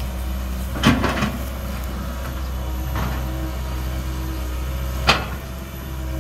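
Komatsu PC200 crawler excavator's diesel engine running steadily while its bucket works into a mound of earth, with sharp knocks from the bucket and arm linkage: a loud knock about a second in followed by a few smaller ones, another around three seconds in, and a sharp one near the end.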